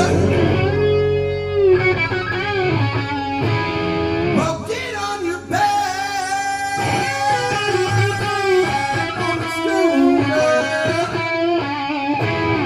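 Rock band playing, with an electric guitar lead of bending, sliding notes over bass and drums.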